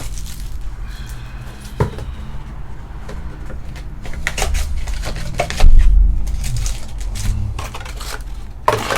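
Cardboard trading card boxes and packs being handled and opened on a table: scattered taps, clicks and rustling, with a heavy thump a little past halfway that is the loudest moment.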